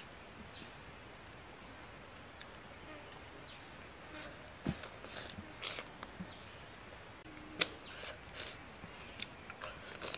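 Steady high-pitched insect drone from the forest, with scattered soft clicks and mouth sounds of someone eating a soft fruit by hand. One sharper click comes near the end.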